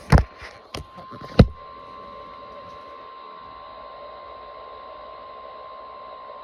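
Weather radio receiver between broadcasts: a few sharp pops in the first second and a half, then steady static hiss with a faint steady tone.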